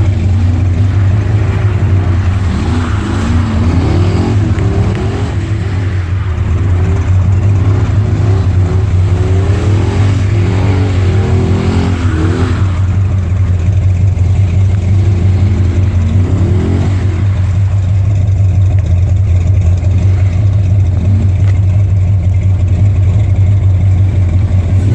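Car engine running with the revs rising and falling repeatedly over a steady low drone, then settling to a steadier pitch for the later part.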